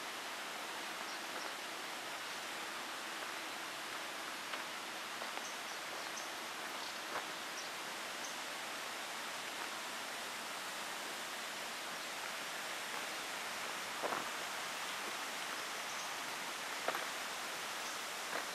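Steady rush of flowing water from a mountain stream, a constant even hiss, with a few short clicks scattered through it.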